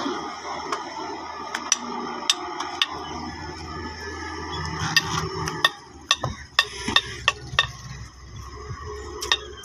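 Doosan wheeled excavator at work: a steady low hum under a series of sharp metallic clanks and clicks, scattered at first and coming thick and fast from about five to eight seconds in. The hum drops away about six seconds in.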